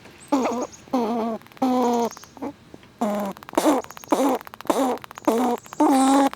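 Squirrels giving a rapid series of short, moaning calls, about ten in six seconds, with sharp crackling clicks from nut-chewing in between.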